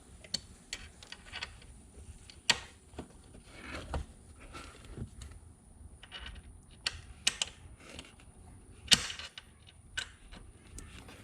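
Hand tools and metal parts clicking, clinking and knocking at an irregular pace while a car's gear shifter is worked on, with a sharp knock about two and a half seconds in and the loudest about nine seconds in.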